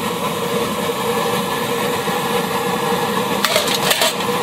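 Petrol pressure burner of an NVA field kitchen running steadily under the pots. Near the end, a short clatter of aluminium cooking pots knocking as they are stacked into one another.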